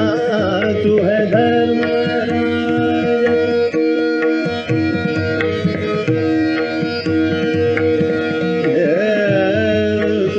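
Hindustani classical vocal music in Raga Khat: a male voice sings gliding, ornamented phrases over a harmonium, a tanpura drone and steady tabla strokes in a medium-tempo ten-beat jhaptal cycle.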